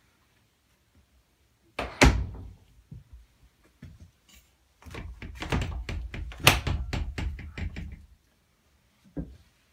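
Wooden closet doors being opened by hand: a loud thunk about two seconds in, then a few seconds of knocking and rattling with one sharp bang in the middle, and a small click near the end.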